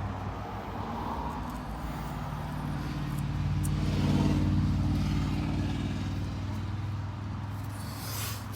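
Car engine idling, its sound swelling for a few seconds about three to four seconds in and then settling back.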